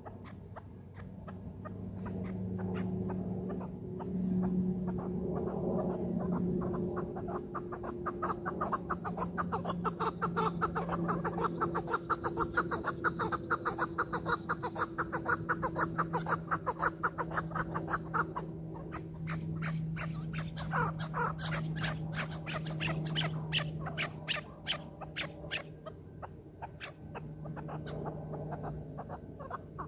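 Chukar partridges calling with fast runs of short, repeated clucking notes that get louder and denser about eight seconds in.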